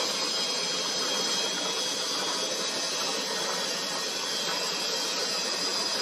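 Cement mixer running with a steady, unbroken noise, with cicadas buzzing high above it.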